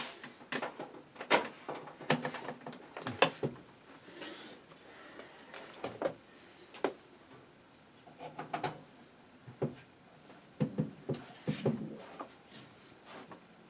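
Irregular clicks, knocks and light rattles of hardware being handled and set down, in scattered clusters with quiet gaps between.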